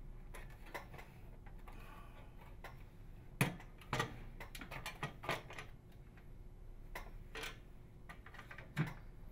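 Clicks and light knocks of plastic as the inner panel of a Frigidaire FPMO227NUFA microwave oven door is worked free of the outer panel. A few sharper clicks stand out among the softer handling, the clearest a little after three seconds and near the end.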